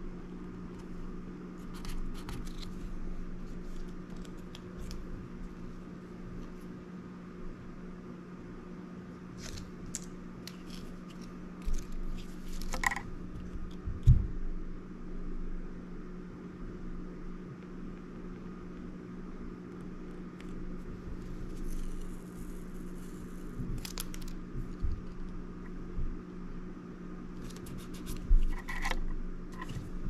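Self-adhesive membrane keypads being peeled from their backing paper and pressed down by hand onto a clear panel: scattered scratches, crinkles and taps, with a sharper knock about halfway through and a couple more near the end, over a steady low hum.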